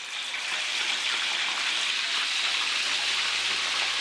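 Seasoned chicken pieces deep-frying in hot oil in a wok: a steady sizzle that swells slightly in the first second.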